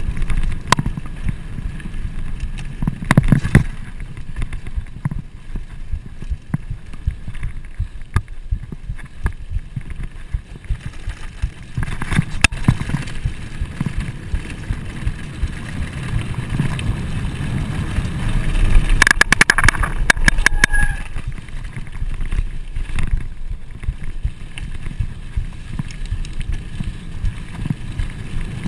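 Trek Fuel EX full-suspension mountain bike rolling fast on a dirt trail: wind rushing over the microphone and a low rumble of knobby tyres on dirt, broken by sharp clicks and rattles of the bike over bumps. About two-thirds of the way in comes a dense burst of rattling with a brief high ring.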